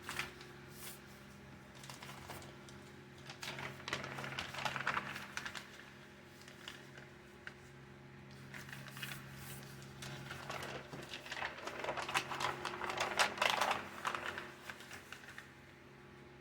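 Sheets of coffee-dyed paper rustling and crackling as they are handled and folded in half, in two spells about four and twelve seconds in, over a low steady hum.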